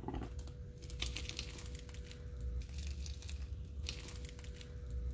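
Crisp deep-fried dough pastry being torn apart by hand: the crust crackles and tears in a run of small irregular crunches.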